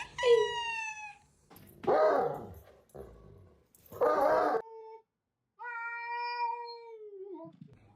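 A domestic cat meowing: four drawn-out calls, the last one long and steady, dropping in pitch at its end.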